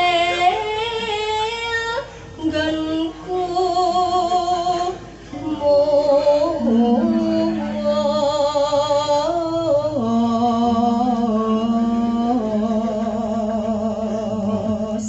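A Javanese sinden (female gamelan vocalist) singing solo into a microphone in pelog tuning: long held notes with a wide vibrato and slides between pitches, in phrases broken by short breaths. From about five seconds in, a steady low note sounds beneath her voice.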